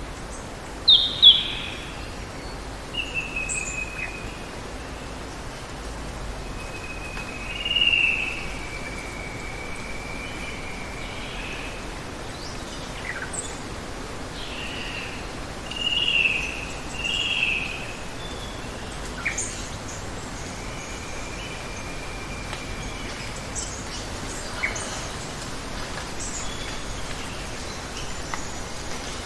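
Steady hiss of running water with birds calling over it: two sharp high chirps about a second in, then long level whistled notes and warbling calls at intervals, with short high chips near the end.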